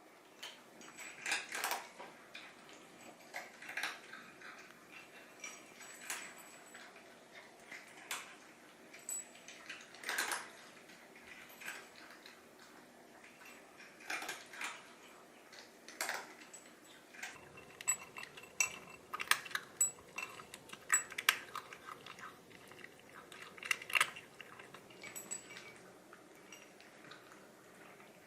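Irregular light clinks and rattles of a food dish, coming every second or two and more often in the second half, as from cats' food being served or eaten from a bowl.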